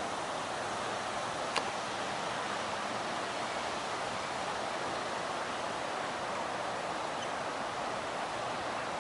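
Rain falling with a steady hiss, and a single sharp tick about one and a half seconds in.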